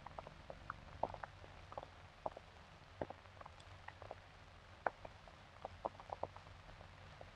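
Quiet soundtrack with faint hum and scattered, irregular clicks and pops, the crackle of an old film's optical soundtrack.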